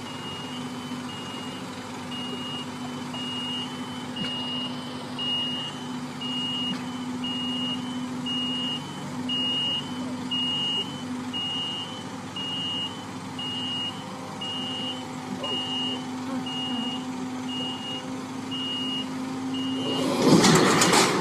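Boom lift's motion alarm beeping steadily, about twice a second, over the steady hum of its running engine. Near the end a sudden loud burst of noise drowns it out.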